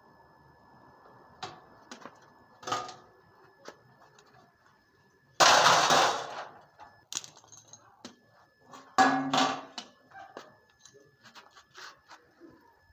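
Scattered metal clanks and knocks from work on an air-conditioner compressor, with two louder crashes about three and a half seconds apart, each fading over about a second.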